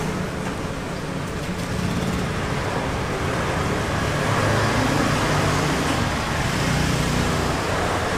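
Steady street traffic noise, with the low hum of passing vehicle engines rising and falling.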